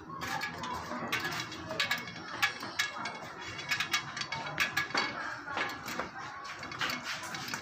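Irregular metallic clicks and ratcheting from work on a bicycle's parts.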